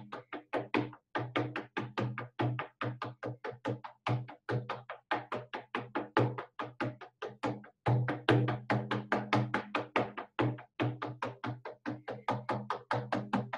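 Hand-held rawhide frame drum beaten with a beater in a fast, steady, even journeying beat, about four to five strokes a second, each stroke with a deep ringing tone.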